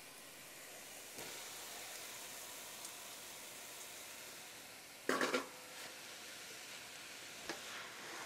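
Onions and water sizzling softly in a stainless sauté pan as boiled greens are tipped in and stirred with a wooden spoon, with a brief louder clatter about five seconds in.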